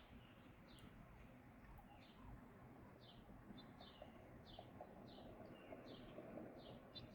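A bird calling faintly, a steady series of short falling chirps at about two a second.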